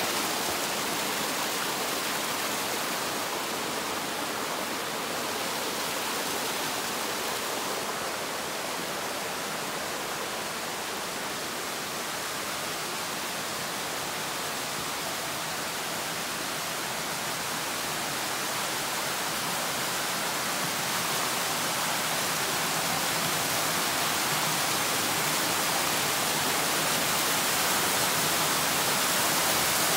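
Steady rush of water from a small rocky gorge stream and its cascades, growing louder over the last several seconds.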